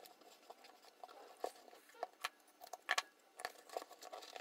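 Aluminium foil tape being pressed and rubbed down onto a plastic lamp housing by fingers, with faint crinkles and rubs and a few small sharp clicks as the plastic case is handled.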